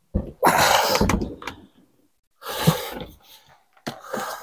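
Kia Rio's plastic dashboard being lifted out of the car: a short knock, then three bursts of scraping and rubbing as the panel is handled.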